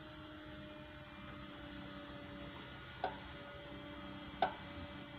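Caterpillar 306E2 mini excavator's diesel engine running as a faint steady hum, with two sharp knocks about three and four and a half seconds in.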